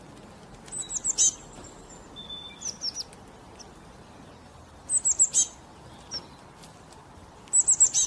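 High, thin songbird calls: three quick runs of four or five falling notes, about a second in, around five seconds in and near the end, with a few softer single notes between.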